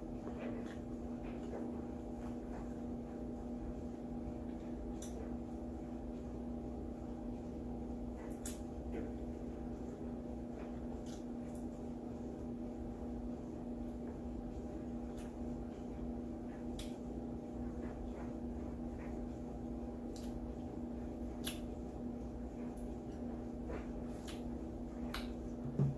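Mouth sounds of eating: scattered small clicks and smacks of chewing, over a steady low hum, with a soft thump near the end.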